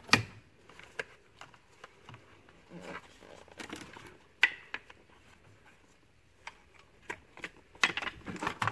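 Scattered clicks, knocks and scrapes of a car battery being worked free and lifted out of its tray: the terminal clamps and the plastic battery case knocking against metal. The sharpest click comes right at the start, and a cluster of knocks comes near the end.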